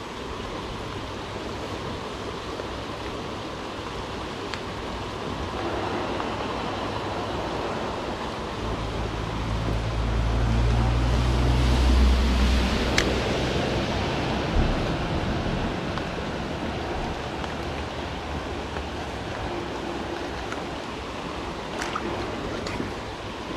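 Shallow mountain trout river running steadily over stones. A low rumble swells and fades a little under halfway through.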